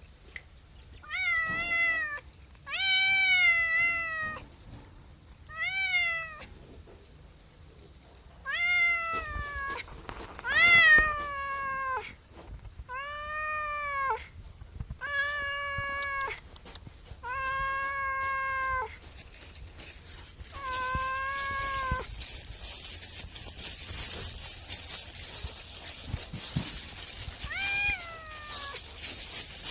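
Domestic cat meowing repeatedly: about ten drawn-out meows, spaced a second or two apart, some rising and then falling in pitch. A steady hiss comes in about two-thirds of the way through.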